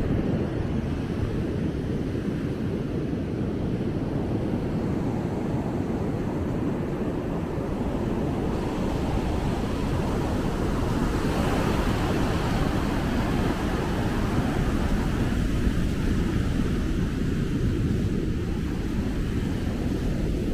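Ocean surf breaking and washing up the shore as a steady rushing noise, swelling a little about halfway through.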